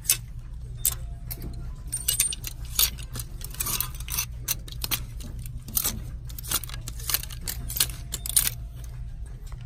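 Plastic clothes hangers clacking against each other as shirts are pushed along a rack one at a time: many sharp clicks at an uneven pace, over a steady low hum.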